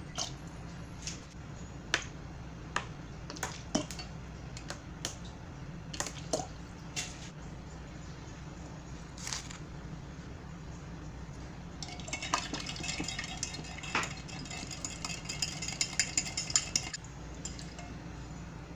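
A spoon knocking and clinking against a glass jug as sauce ingredients are spooned in, with scattered single clicks. About twelve seconds in comes a run of quick clinks lasting about five seconds as the spoon stirs the sauce in the glass jug, all over a steady low hum.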